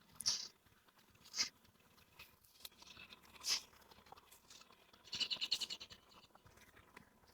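A bird chirping a few times, short high notes about a second apart, then a quick trill of rapid notes about five seconds in.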